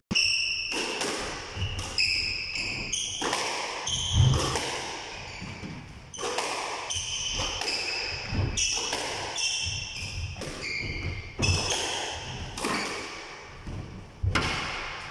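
Squash rally: the ball striking racquets and the court walls in an irregular run of sharp knocks, with short high squeaks from players' shoes on the court floor.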